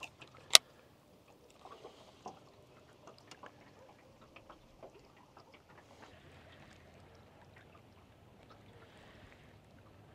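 A single sharp click about half a second in, then faint water lapping against a fishing boat hull, with small scattered ticks.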